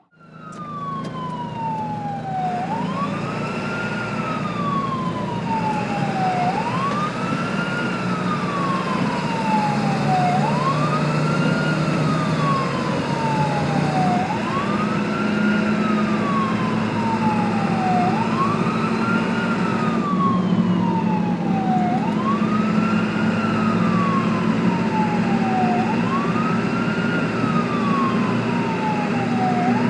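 Emergency-vehicle siren wailing in a slow, repeating rise and fall, about one cycle every four seconds: a quick climb, then a longer glide down. A low steady engine hum runs underneath. It fades in over the first couple of seconds.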